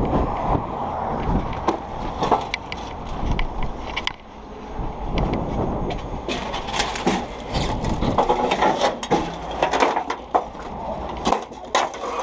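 Irregular clanks, knocks and rattles of towing rigging gear being handled, over a low wind rumble on the microphone.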